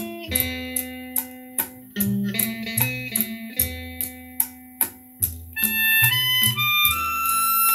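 Instrumental music played through a pair of Victor S-D11 three-way vintage speakers (8-inch woofer, 3.5-inch midrange, 1.5-inch tweeter). A steady beat with a bass line and melody plays, and about three quarters of the way through a louder lead melody with long held notes comes in.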